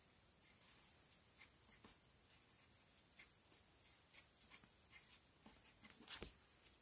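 Pencil sketching on paper: faint, short scratchy strokes, with a louder rustle about six seconds in.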